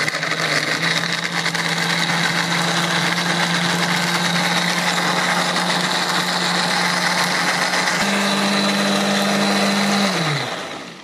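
Philips countertop blender motor running steadily, grinding a wet spice paste of shallots, garlic, chillies and candlenut. Its hum jumps higher about eight seconds in, then the motor is switched off and winds down near the end.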